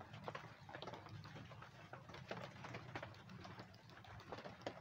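A small flock of hens in a coop, making low, soft clucking sounds over a scatter of irregular light taps and ticks.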